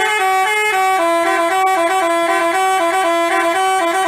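Basuri-type telolet horn playing a quick tune, its notes stepping up and down between a few pitches several times a second.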